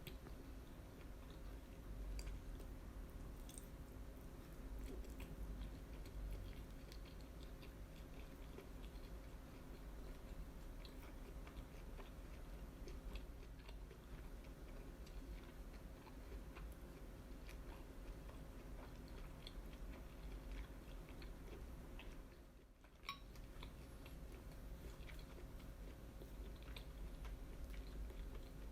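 Close-miked chewing of grilled yakitori: soft, wet mouth sounds with small scattered clicks, over a faint steady hum. The sound briefly drops out about three-quarters of the way through.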